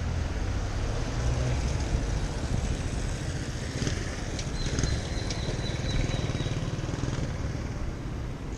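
City street traffic heard from a moving bicycle, with wind rumbling on the microphone. A few sharp clicks and a thin, steady high whine come about halfway through.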